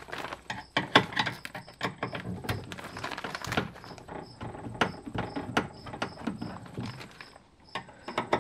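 Irregular clicks, taps and knocks of a screwdriver and hand working on the inner metal and plastic parts of a 2017 Mitsubishi Outlander's front passenger door, with the panel off.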